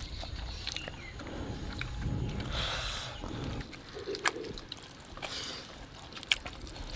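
A person eating by hand, chewing with lip smacks and a few sharp mouth clicks. A low rumble runs under the first half and stops a little past the middle.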